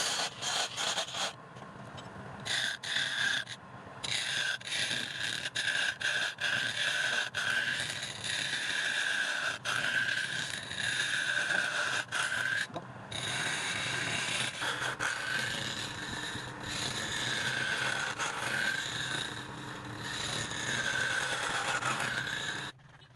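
Power tool working wood: a high motor whine with grinding noise, its pitch sagging under load and recovering, broken up by frequent abrupt cuts.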